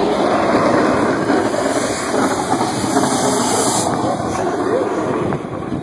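A car stuck in snow, its engine revving and wheels spinning, a dense steady rush with a high hiss that swells about a second and a half in and eases near four seconds.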